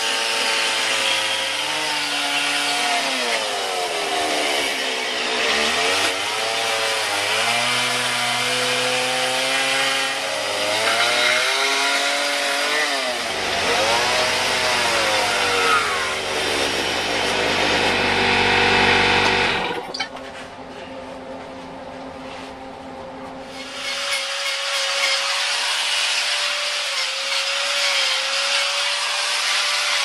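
Carving chainsaw revving and cutting into wood, its pitch repeatedly rising and falling under load, until it stops abruptly about two-thirds of the way through. After a quieter few seconds, a handheld electric grinder runs with a steady whine as it shapes the wood.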